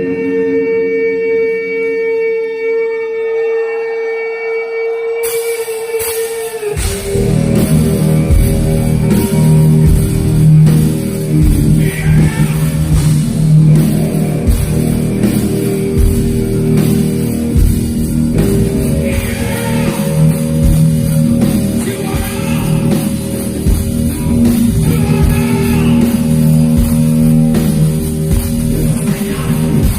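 Live heavy metal band: an electric guitar holds one sustained note, then about seven seconds in the drums and bass crash in and the full band plays on with a steady beat.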